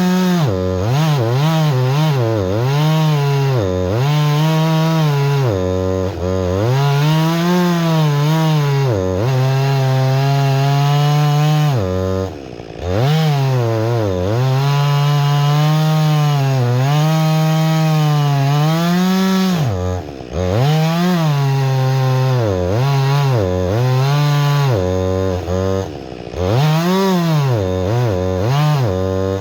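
Husqvarna 562 XP two-stroke chainsaw cutting wood at high revs, its pitch sagging and recovering again and again as the chain bogs down under load. The throttle is let off briefly three or four times.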